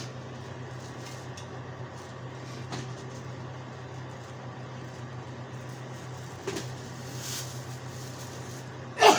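A steady low machine hum, with a few light clicks and one sharp knock near the end.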